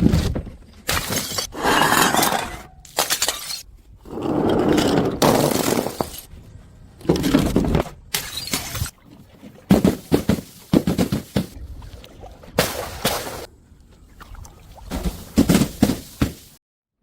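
Glass bottles smashing and shattering, one break after another, some sharp single cracks and some longer crashes with tinkling shards.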